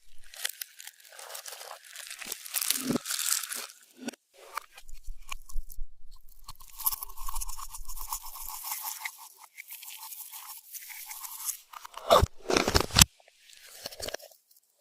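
Slime being worked by hand with crushed makeup mixed in, making crunchy, crackling squishes in several bouts, with the loudest strokes near the end.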